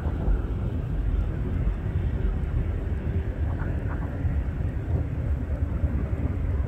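Boeing 737-700's CFM56 jet engines at takeoff thrust during the takeoff roll, a steady low rumble.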